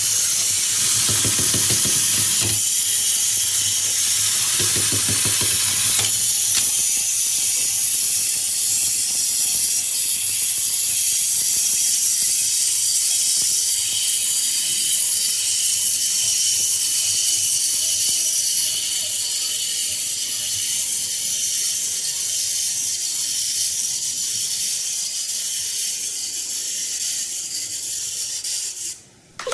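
Clockwork motors of wind-up toys whirring steadily as they walk and tumble, cutting off suddenly about a second before the end.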